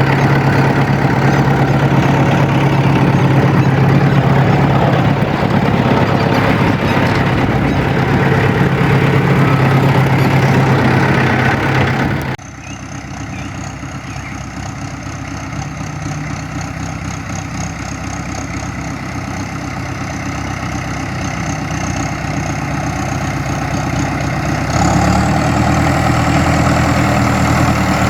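Farm vehicle's diesel engine idling at a steady speed. About twelve seconds in the sound drops abruptly to a quieter engine note with a faint high whine, which becomes louder again near the end.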